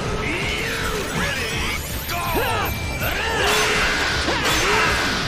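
Dense action sound effects: crashes, impacts and whooshes over music, with many sliding, swooping tones.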